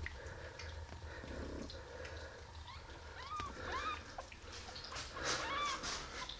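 Newborn kitten, eleven days old, mewing: three or four short, high, thin cries that rise and fall, starting about three seconds in. Faint rustling from handling sits underneath.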